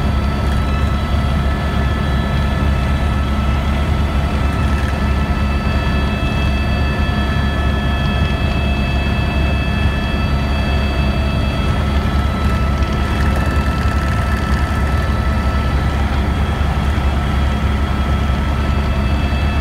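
Helicopter in flight, heard from inside the passenger cabin: a loud, steady drone of engine and rotor with several constant high whining tones above it.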